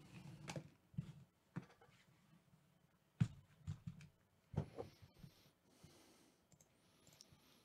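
Faint, irregular clicks and taps of a computer mouse and keyboard, a handful of them a second or so apart.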